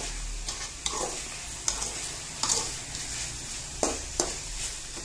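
Chicken pieces sizzling in a metal kadai while a perforated metal skimmer stirs them, with a steady frying hiss and about five irregular scrapes and knocks of the spoon against the pan.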